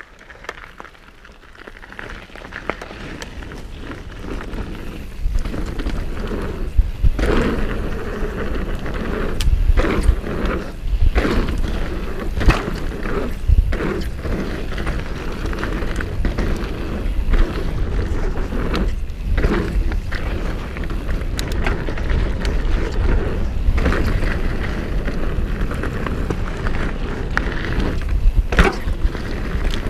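Mountain bike descending a dirt trail, heard from a camera on the bike: a rushing noise of wind and tyres on dirt that builds over the first several seconds as it gathers speed, with frequent clattering knocks from the bike over bumps.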